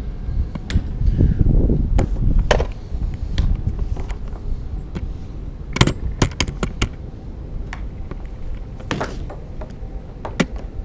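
A series of sharp knocks and clicks over a low rumble, with a quick cluster of knocks about six seconds in.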